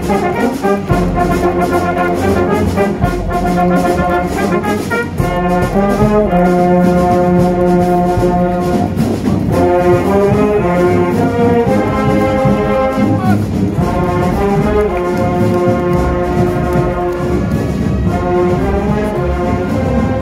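A marching brass band playing a tune in sustained, held phrases, with regular percussive strokes underneath.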